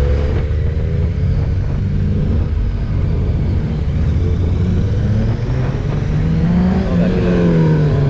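Royal Enfield Interceptor 650's parallel-twin engine running under way, heard from the rider's seat. Its pitch climbs as the rider accelerates from about six seconds in, then holds.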